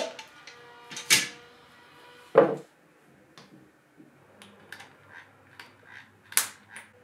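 Hard plastic clicks and knocks as a plastic electrical junction box is handled and set against a wooden panel. A duller thud comes about two and a half seconds in, then lighter ticks, and a sharp click near the end.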